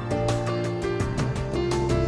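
Background music: held melodic notes over a steady, quick beat.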